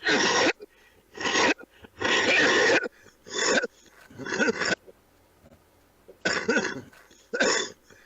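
A man coughing hard and repeatedly, about seven harsh coughs in uneven bursts. Some of the coughs are voiced. There is a pause of about a second and a half just after the middle.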